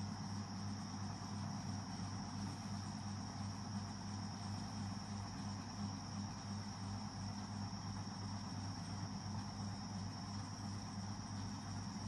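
Steady background sound: a constant low hum with a continuous high-pitched tone above it, unchanging throughout.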